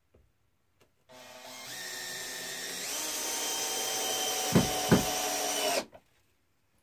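Cordless drill driving a screw through a metal bracket into wood: the motor whines for about five seconds, stepping up in pitch and growing louder, then stops. Two sharp knocks about a second before it stops are the loudest sounds.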